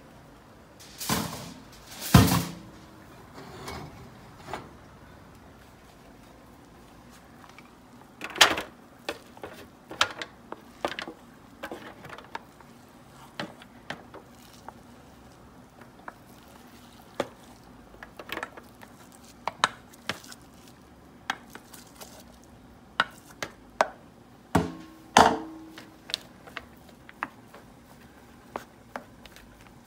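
Cookware clanking, then a serving spoon repeatedly knocking and scraping against a saucepan and an aluminium foil tray as cooked rice is scooped out, in short irregular clicks with a few louder clanks, two loud ones about a second and two seconds in and another late on.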